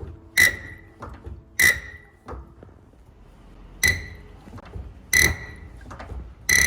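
Diesel fuel injector popping on a hand-lever nozzle tester: five sharp pops at irregular intervals, each with a brief high ring. Fainter ticks fall between the pops.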